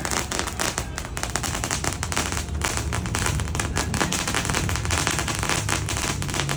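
A '90-second' firecracker item going off: an unbroken run of rapid pops and crackles, many a second, steady in loudness.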